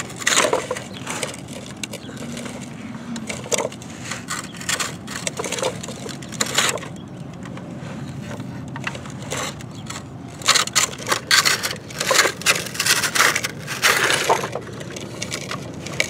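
Sand scraped and crunched by a toy crane's bucket being dug through it by hand: irregular gritty scrapes, busier in the second half.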